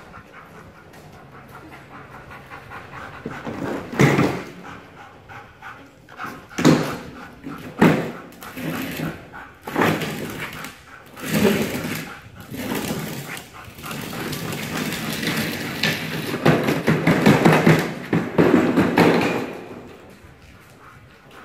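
A dog panting and whimpering, broken by several loud sudden sounds and a louder stretch of a few seconds near the end.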